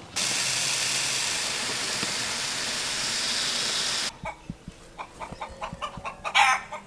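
For the first four seconds, a loud steady rushing noise that cuts off abruptly. Then chickens clucking at a PVC pipe feeder, with a scatter of sharp taps.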